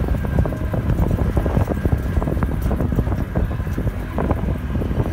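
Wind buffeting the microphone over the low rumble of an open safari vehicle driving, with many small irregular rattles and knocks from the vehicle.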